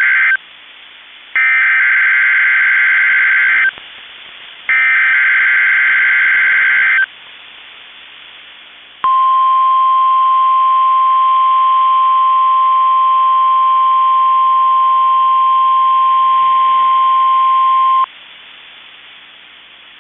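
NOAA Weather Radio Specific Area Message Encoding (SAME) header: the tail of one rasping digital data burst, then two more of about two seconds each with a second's gap between. About two seconds later comes the steady 1050 Hz warning alarm tone, held for about nine seconds and cutting off sharply into faint radio hiss. This sequence is the weekly test that activates alert-equipped weather radios.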